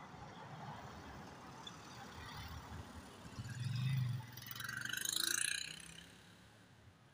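Outdoor traffic noise with a vehicle passing close by: a low engine hum swells about three and a half seconds in, then gives way to a rushing hiss that fades out about six seconds in.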